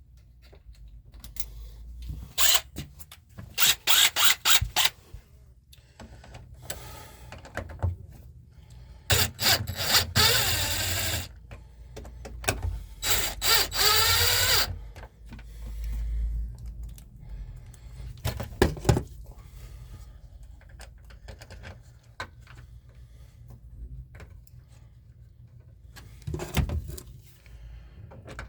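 Power drill driving screws in several short runs of a few seconds each, its motor pitch shifting as each screw goes in, with quieter pauses between runs.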